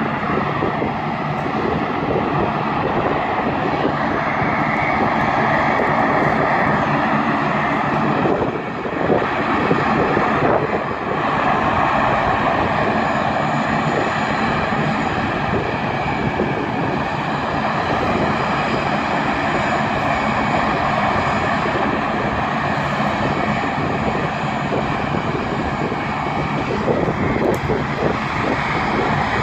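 RAAF C-130 Hercules's four turboprop engines running steadily as the aircraft taxis on the runway, a continuous propeller and engine drone that dips briefly twice near the middle.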